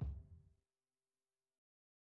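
Background music ending: a last drum hit over a held chord dies away within about half a second, then complete silence.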